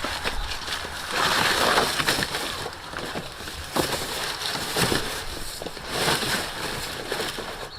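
Cardboard rustling and scraping against the ground, with scattered knocks and clicks, loudest about a second in.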